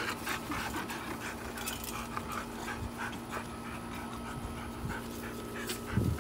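Dog panting, from the husky with its mouth open, in a run of short breaths, with a louder low bump near the end.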